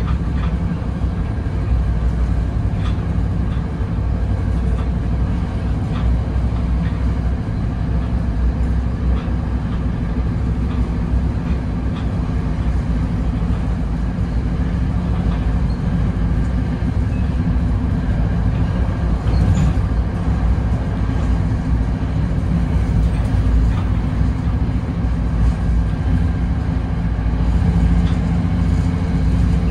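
Inside a Bombardier Comet IIM passenger coach running along the track: a steady low rumble of the wheels and running gear, with faint scattered clicks.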